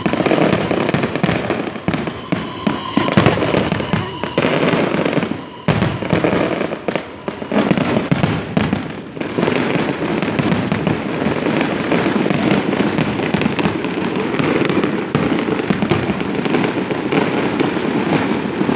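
Fireworks display: a dense barrage of overlapping bangs in rapid succession, with brief lulls about six and nine seconds in.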